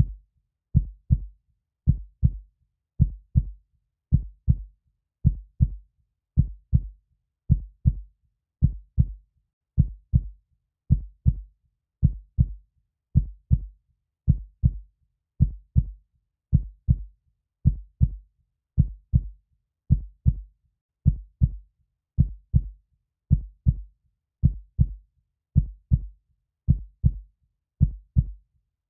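Heartbeat: a steady, slow rhythm of low double thumps (lub-dub), a little under one beat a second, with silence between beats.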